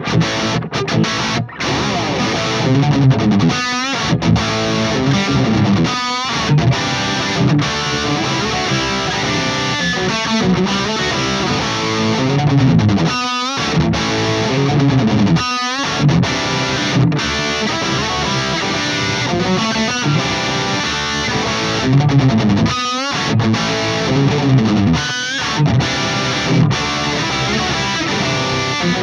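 PRS Custom 24 electric guitar played through a Myasnikov Super Lead preamplifier, distorted riffs and chords with a few short stops. Heard unprocessed from a Vintage 30 speaker miked with a Shure SM57.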